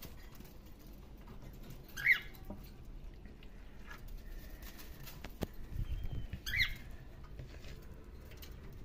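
Rice being mixed with a spice marinade in a bowl, soft rustling and tapping, with two short high squeaks, one about two seconds in and one near the end, and a single sharp click between them.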